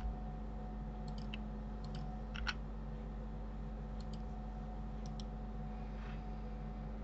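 Scattered light clicks from a computer mouse and keyboard, mostly in quick pairs, with a slightly louder one about two and a half seconds in. A steady low hum runs underneath.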